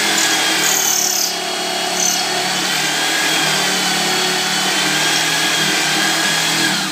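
Electric drill running steadily, spinning a Hornady Lock-N-Load neck turning tool whose cutter is shaving down the neck of a brass rifle case.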